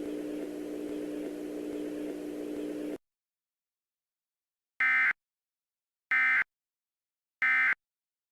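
Low hum and hiss from the alert broadcast that cut off suddenly, then three short identical warbling data bursts about 1.3 s apart. This is the Emergency Alert System's SAME end-of-message code, which closes the alert.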